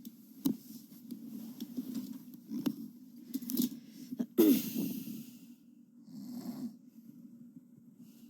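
A sleeping person's noisy, wheezing breath: about four and a half seconds in, a loud breathy sound with a short falling tone, and a fainter breath about six seconds in, amid scattered small clicks.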